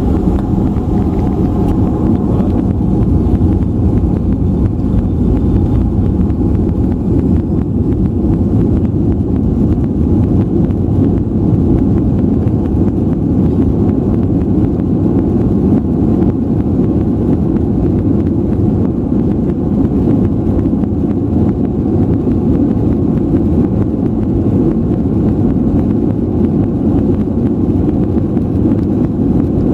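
Airliner taking off: a loud, steady low rumble of engines and rushing air.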